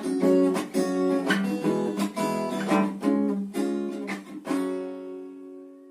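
Acoustic guitar strummed in a steady rhythm, closing with a last chord that rings and fades away.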